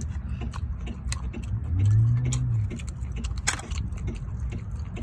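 Irregular clicks and clinks of green mussel shells being handled while eating, over a steady low rumble. A short low hum rises and falls about two seconds in.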